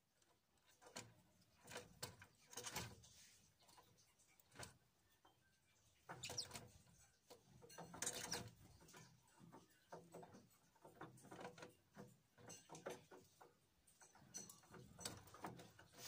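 Faint, scattered taps and scratches of a great tit landing on and pecking at bread in a cardboard feeder box, with a wing flutter about eight seconds in and a few short high bird chirps.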